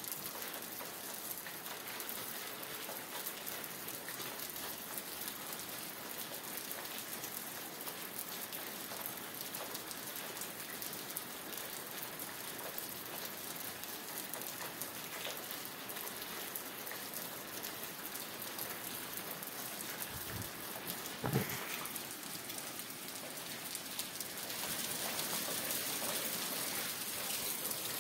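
Rain falling steadily, with one brief louder thud about three quarters of the way through. The rain grows a little louder near the end.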